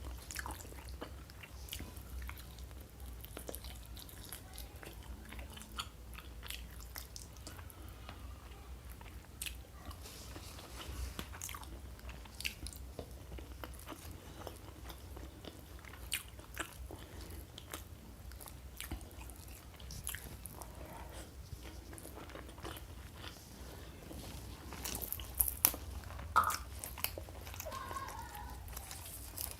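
Close-miked chewing and biting of food, with short crunches scattered throughout and a louder run of sharper crunches near the end.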